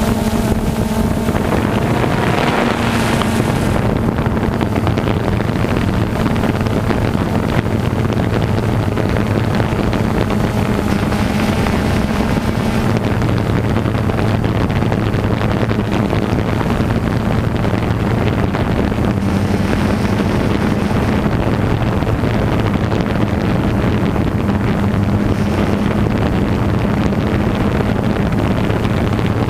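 A steady engine hum with wind noise on the microphone.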